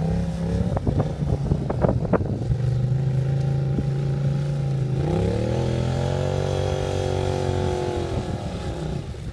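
Polaris Sportsman Touring ATV engine running under load as it climbs through snow, its pitch rising about five seconds in and easing off near the end. A few sharp knocks sound in the first two seconds.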